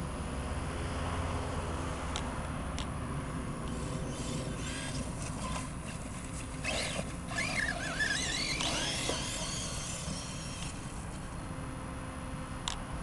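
Arrma Talion 6S RC truck's brushless electric motor whining at a distance through high grass, its pitch wavering up and down with the throttle for a few seconds in the middle, over steady outdoor noise with a few light clicks.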